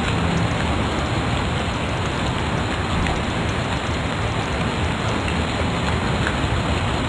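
A steady, even hiss that fills the recording, with a few faint clicks.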